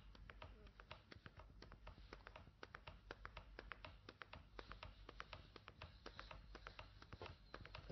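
Faint, quick, irregular tapping clicks, several a second, with no voice.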